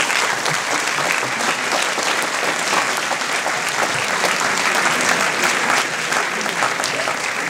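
Audience applause filling a large auditorium, steady throughout and starting to thin out near the end.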